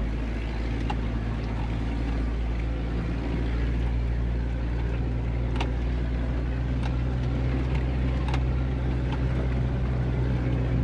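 4x4 engine and drivetrain running at a steady low drone while driving slowly over a rough track, with scattered sharp clicks and knocks.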